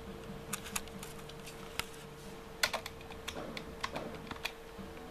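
Computer keyboard keys pressed in an irregular run of about a dozen clicks, keystrokes launching Doom and picking options in its menu, over a steady hum.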